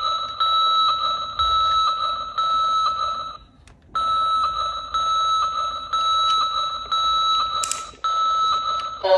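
Electronic buzzer tone from a toy excavator's sound unit: one steady high-pitched tone with faint ticks about twice a second. It breaks off for half a second about three and a half seconds in, then goes on until just before the end.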